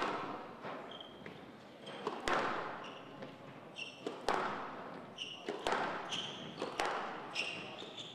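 Squash ball struck hard by racquets and smacking off the walls of a glass-walled court: sharp cracks every second or two, each ringing out in the hall. Short high squeaks of court shoes on the wooden floor come between the shots.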